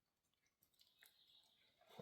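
Near silence, with faint scattered clicks and soft rustling starting about half a second in.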